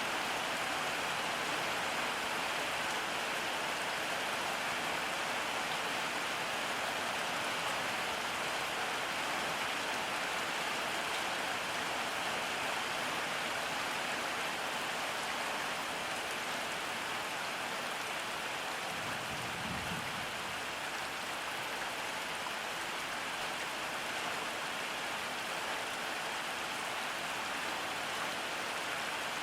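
Steady rain falling, an even hiss with no let-up. A brief low rumble comes about two-thirds of the way in.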